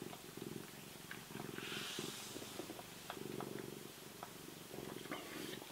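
Domestic cat purring steadily, a low rapid rattle that comes in alternating stretches with each breath, with a few faint clicks and a soft hiss about two seconds in.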